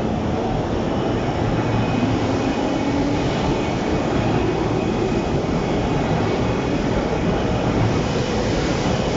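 Electric commuter train running alongside the platform, a steady loud rumble of wheels on rail. A faint motor whine rises in pitch a couple of seconds in.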